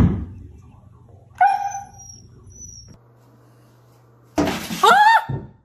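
A husky gives a short, high, steady whine about a second and a half in. Near the end comes a loud rustling burst and then a short call that rises and falls in pitch.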